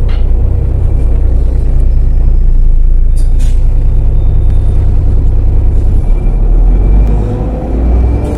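Heuliez GX 127L city bus heard from inside the passenger cabin while driving: a loud, steady low engine and road rumble. Two short sharp sounds come about three seconds in, and the drone drops lower around six seconds in.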